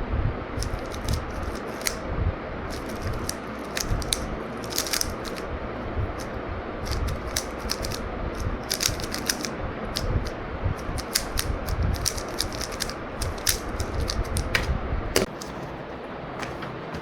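Electric fan running, its airflow buffeting the microphone of a DJI Osmo Nano recording with noise cancellation off, with scattered sharp clicks and taps throughout. The low rumble drops away near the end.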